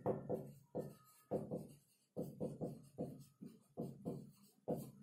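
Marker pen writing on a whiteboard: a run of short scratching strokes, two or three a second, with a brief squeak about a second in.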